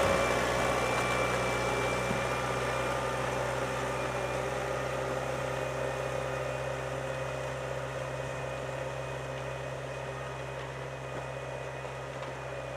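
John Deere 6310 tractor's diesel engine running steadily while pulling a three-furrow reversible plough, with a constant low hum that grows slowly fainter.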